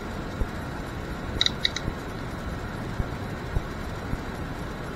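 Open-barrel crimping tool clicking as its jaws close on a bullet-connector terminal: a quick run of three or four sharp metallic clicks about a second and a half in, among light knocks from handling the tool and wire.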